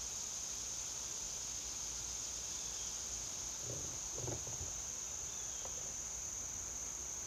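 Steady, high-pitched insect chorus: one shrill drone that does not break or change. A faint brief rustle comes about four seconds in.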